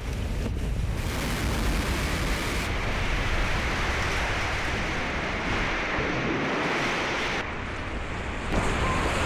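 A house collapsing after a dynamite blast: a steady rush of falling debris and dust with a deep rumble, shifting abruptly a few times.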